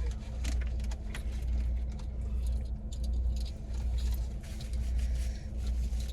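Low rumble inside a car, swelling and easing about once a second, with a steady hum and scattered small clicks and rattles.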